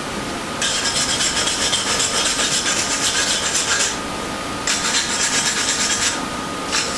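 Hand wire brush scrubbing a freshly MIG-welded aluminium joint to clean off the soot and oxide: rapid back-and-forth scratching in two long spells with a short pause between, and a third spell starting near the end.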